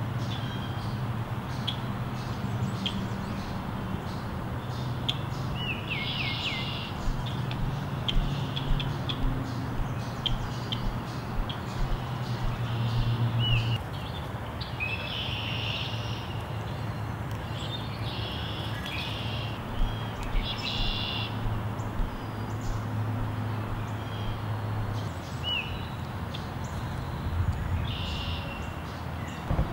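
Black-capped chickadees calling: scattered high chirps and short buzzy notes that come and go throughout, over a steady low background rumble.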